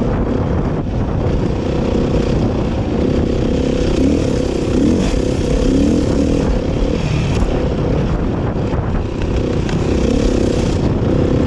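Dirt bike engine, likely a Beta RR 500 four-stroke single, running under way with heavy wind noise. Its pitch briefly rises and falls a few times around the middle.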